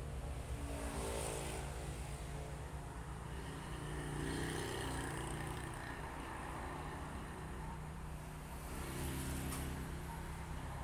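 A motor vehicle's engine running with a steady low hum, swelling about a second in and again near the end.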